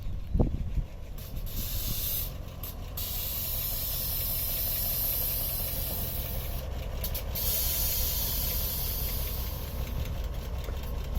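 Car engine running with a low rumble, under a loud steady hiss that starts about a second in and breaks off briefly twice.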